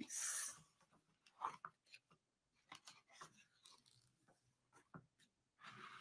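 Pages of a picture book being handled and turned: a short rustle right at the start, scattered faint taps of paper and fingers, and a longer rustle of a page turning near the end.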